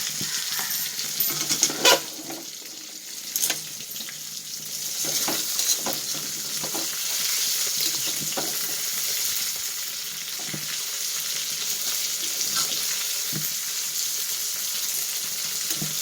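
Pieces of ayila (Indian mackerel) shallow-frying in hot coconut oil: a steady sizzle, with a few sharp knocks scattered through it.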